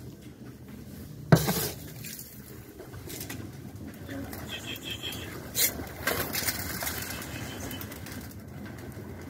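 A flock of feral pigeons feeding, with cooing and flutters of wing flaps. A single loud knock comes about a second in.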